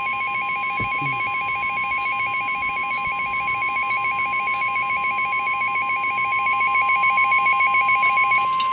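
Emergency Alert System attention tones for a severe thunderstorm warning: a fast trilling warble with a steady single-pitch tone held over it, loud and unbroken, growing a little louder and cutting off abruptly near the end.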